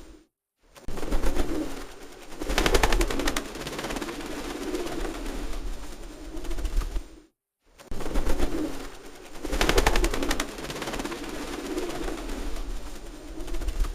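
Pigeons cooing low and rolling, broken twice by a burst of rapid clattering, about two and a half seconds in and again about nine and a half seconds in. The sequence repeats after a brief silent break.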